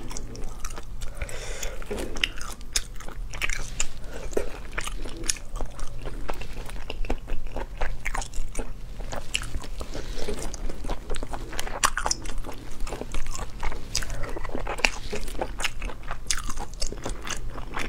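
Close-miked eating sounds: chewing and biting on sea snail meat in chili oil, with many quick irregular clicks and crackles as the snail shells are handled and pried open by hand. A faint steady low hum runs underneath.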